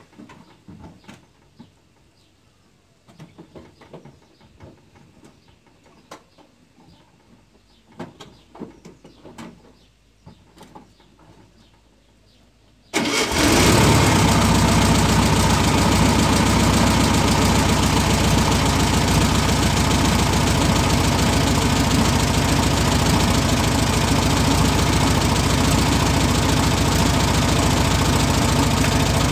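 Faint scattered clicks and knocks, then about halfway through a Volkswagen Fusca's air-cooled flat-four engine cuts in loud and runs steadily, its muffler removed so it exhausts through a bare pipe.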